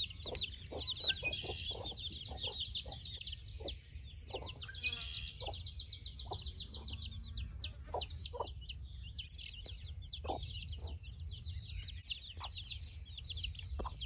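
Chickens clucking in short, scattered calls, with runs of fast, high chirping trills in the first half and a steady low rumble underneath.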